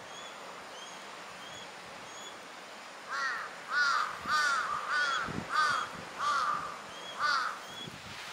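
A crow cawing: a run of about seven harsh caws, roughly two a second, starting about three seconds in. Before them, a small bird gives faint, evenly spaced high chirps.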